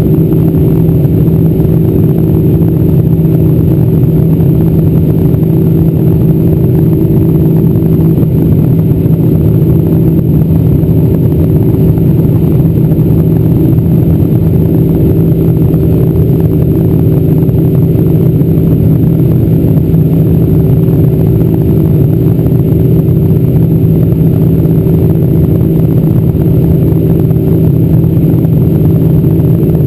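Boeing 747-400's General Electric CF6-80C2 turbofan engines running in flight, heard inside the cabin at a window over the left wing: a loud, even drone with a steady low hum.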